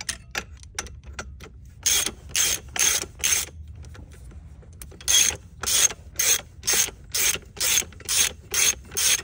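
Hand ratchet (a 90-tooth ratchet) clicking as it is swung back and forth on the alternator's belt-adjusting bolt, a short burst of pawl clicks on each return stroke. About four strokes, a pause of over a second, then about nine more at a steady two a second.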